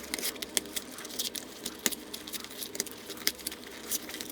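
Small objects being handled: an irregular scatter of light clicks and rattles, a few louder ticks among them.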